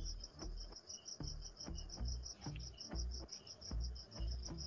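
An insect chirping steadily: a rapid, even train of high-pitched chirps, about eight a second, over a soft low beat roughly twice a second.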